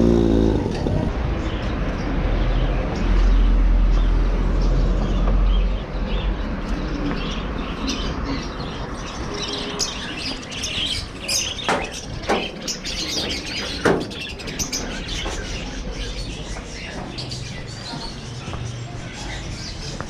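Small birds chirping again and again over steady street noise. A low rumble runs through the first few seconds, and a few sharp knocks come near the middle.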